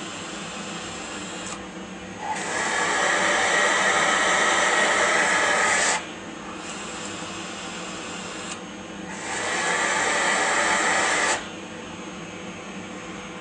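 Vacuum suction running through a 3D-printed dust-extraction shroud for a CNC milling machine: a steady rush of air that twice turns much louder and hissier for a few seconds, about two seconds in and again about nine seconds in, then drops back.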